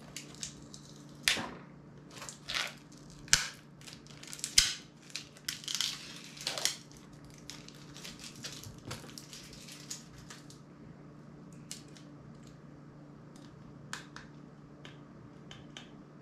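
Plastic clicking, snapping and crackling from a partly disassembled smartphone being handled and pried apart by hand: a run of sharp clicks and crinkly scraping in the first seven seconds or so, then only scattered light ticks.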